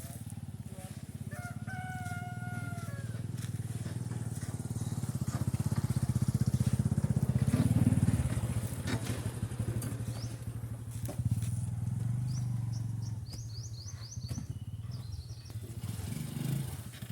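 An engine runs steadily with a fast low pulse, growing louder up to about eight seconds in and then easing off. A bird gives a short call about two seconds in, and a run of high chirps follows around thirteen to fifteen seconds in.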